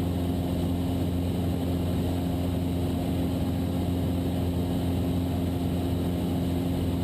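Cessna 172's engine and propeller droning steadily in flight, an even low hum that holds the same pitch and level throughout.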